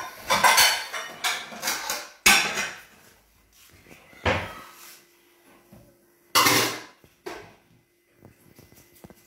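Kitchen handling clatter: a quick run of knocks and clinks of dishes and utensils in the first three seconds, single knocks a little later, and a louder half-second clatter about six and a half seconds in, like a cupboard door or dish being handled.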